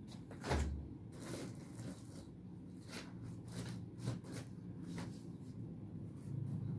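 Rustling and handling noise close to the microphone, with a soft thump about half a second in and scattered clicks after it.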